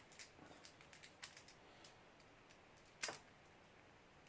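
Faint small metallic clicks and taps of a lock and a flathead screwdriver being worked during disassembly, with one sharper click about three seconds in.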